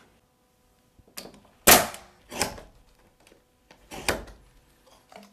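A handful of separate sharp wooden knocks and clacks, the loudest about a second and a half in: thick wooden shims being handled and pushed into the gap behind a door hinge, between the pre-hung door's jamb and the rough opening.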